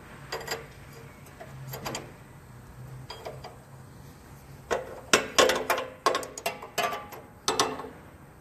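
Sharp metallic clicks and clinks of hose fittings and tools as an oil line is hooked up on an engine test stand: a few single clicks at first, then a quick irregular run of them with brief ringing in the second half, over a faint low hum.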